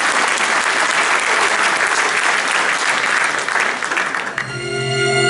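Theatre audience applauding, the clapping thinning out about four seconds in as a string-led musical introduction begins with long sustained notes.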